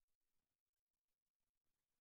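Near silence: no audible sound, only a faint noise floor.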